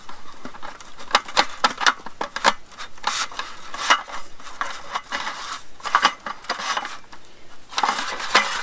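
Aluminum support stick of a GSI Outdoors Macro roll-up table being pushed through the holes in its aluminum slats, with irregular metallic clinks and scrapes as it catches on the slats.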